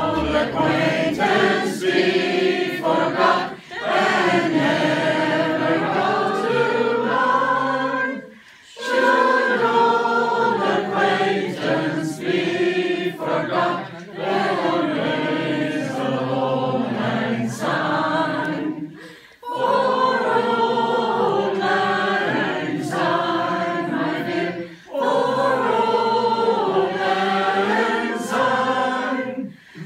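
A mixed group of men and women singing together without instruments, in sung phrases broken by a few short pauses.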